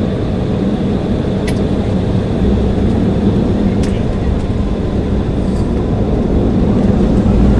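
Airliner engines and rushing air during takeoff: a steady roar with a low hum, gradually growing louder toward the end.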